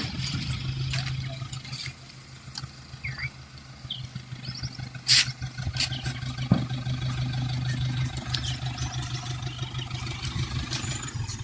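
A vehicle engine idling steadily, with scattered clicks, a few short high chirps, and two sharp knocks about five and six and a half seconds in.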